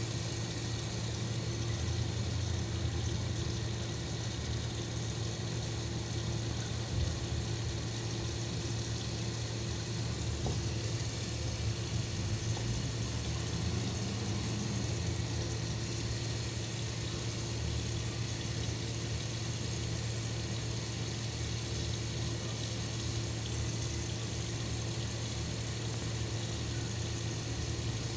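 Water running in a steady, continuous rush, with a constant low hum underneath.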